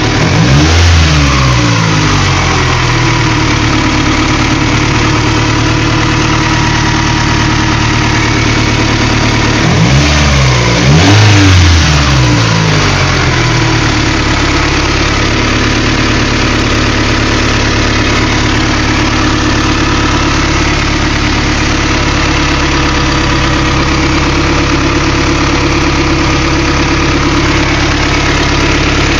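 Honda B16A DOHC VTEC four-cylinder engine idling, blipped twice about ten seconds in with the revs rising and falling back each time, then idling steadily. It is being revved to reproduce an idle problem.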